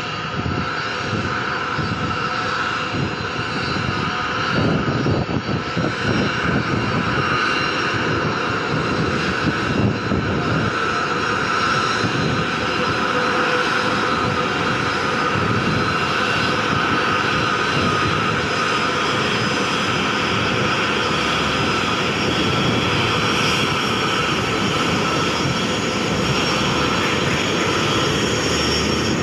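Airbus A330-200 jet engines running: a continuous rumble with steady whining tones, growing a little louder over the first few seconds and then holding steady.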